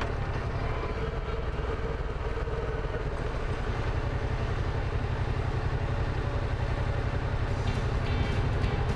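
Motorcycle engine running steadily at road speed, mixed with wind rush, getting a little louder toward the end.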